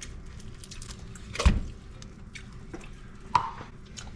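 Hands picking through fresh crab meat in a bowl for bits of shell, making light wet clicks and taps. Two louder knocks come through, one about a second and a half in and another almost two seconds later, over a low steady hum.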